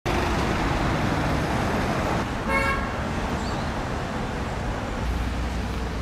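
Steady road traffic noise, with one short vehicle horn toot about two and a half seconds in.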